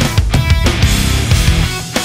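Hard rock music with a driving beat.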